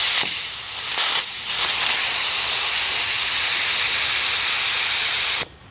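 Steady hiss of air at a log splitter tire valve. It starts and stops abruptly, dips briefly twice in the first second and a half, and cuts off just before the end.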